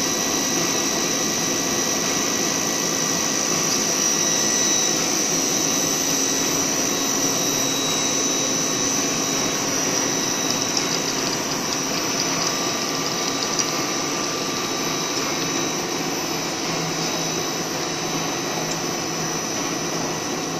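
Twin-screw snack food extruder line running: a steady machine drone with a constant high whine.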